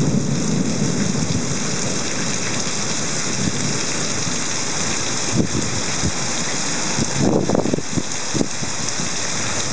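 Heavy rain pouring down steadily, a dense even hiss, with a few short louder splashes or knocks about seven seconds in.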